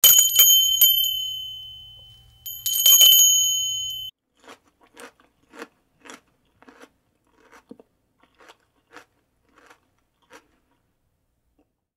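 A small bell rings twice, about two and a half seconds apart, each ring holding a few high tones and dying away over about two seconds. Then comes a run of faint short sounds, about two a second.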